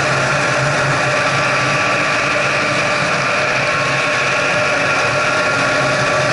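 Snowmobile engine running at a steady cruising speed, a constant, even drone while the sled travels along a groomed snow trail.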